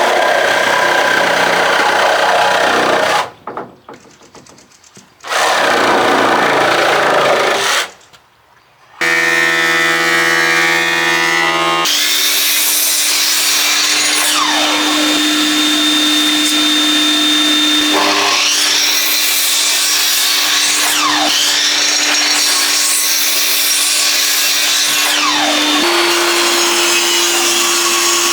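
Electric wood planer machining boards: two short bursts of cutting noise, then the machine running freely with a steady hum for about three seconds, then a long stretch of the cutters working the wood over the motor's steady tone.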